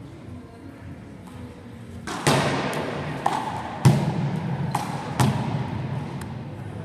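Handball rally: the ball smacked by hand and striking the wall and floor, about six sharp hits from about two seconds in, the loudest near the middle, each echoing around a large hard-walled sports hall.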